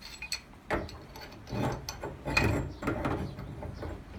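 Pipe wrench turning a threaded fitting on a water heater pipe: a few sharp metal clicks, then several rasping, grinding strokes as the jaws bite and the threads turn.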